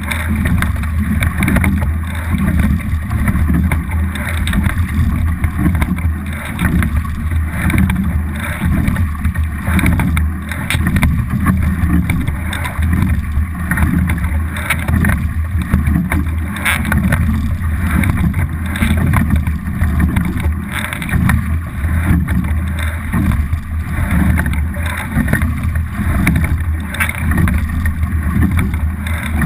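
A racing double scull under way at rowing pace: water rushing along the hull, with wind buffeting the boat-mounted microphone as a steady low rumble.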